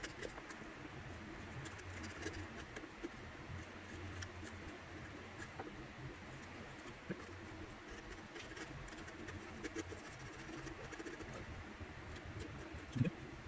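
Hand chisel paring end and long grain in a dovetail mortise: faint scraping and small scattered clicks as thin shavings are sliced away.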